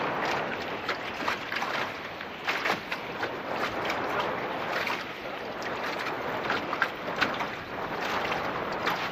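Choppy lake water slapping and splashing against a small boat's hull in an irregular stream of short splashes.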